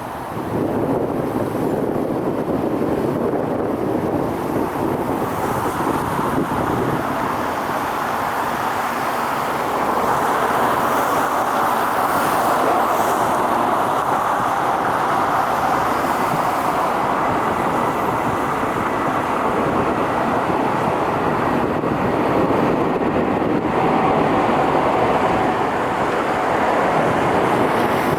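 Steady jet engine noise from an airliner, growing louder about ten seconds in.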